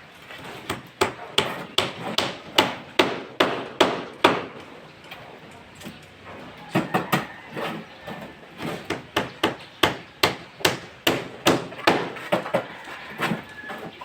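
Hand hammer striking repeatedly at about two blows a second, in two runs separated by a pause of a couple of seconds.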